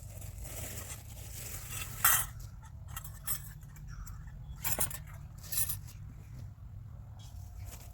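A few sharp clinks and knocks of objects being handled, the loudest about two seconds in, over a steady low rumble.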